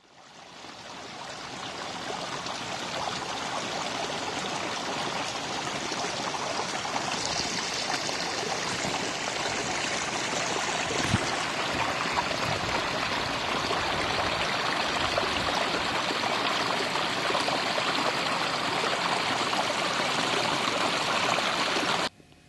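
Flowing water of a stream: a steady, even rush that fades in over the first couple of seconds and cuts off abruptly near the end, with one brief click about halfway through.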